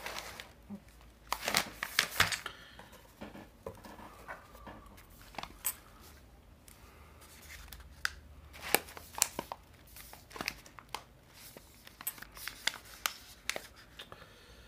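A packaged coffee bag crinkling and rustling in irregular bursts as it is lifted out of a cardboard box and handled, loudest about two seconds in.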